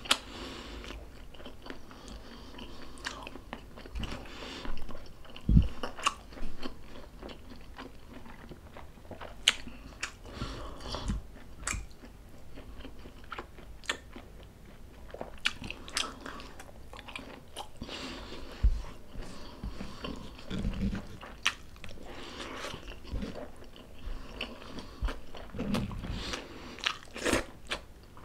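Close-miked mouth sounds of eating: chewing and biting food, with irregular sharp clicks and a few low thumps.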